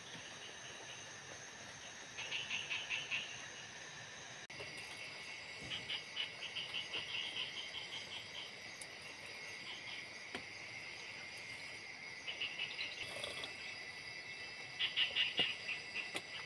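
Tropical forest night chorus: a steady high-pitched insect drone, with bursts of fast pulsed chirping calls that come and go every few seconds.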